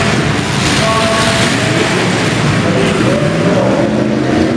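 Several demolition derby cars' engines running and revving at once, a loud, unbroken din with pitches that rise and fall.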